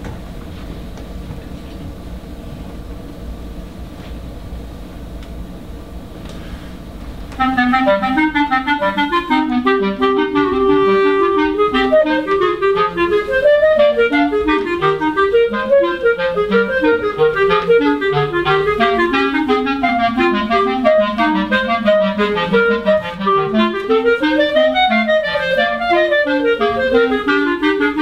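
A low steady hum for about the first seven seconds, then two clarinets start together and play fast, busy runs of short notes in interweaving lines.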